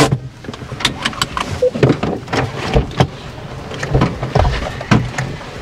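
Irregular knocks, clicks and rattles, several a second, over a low rumble inside a car on a rough dirt track.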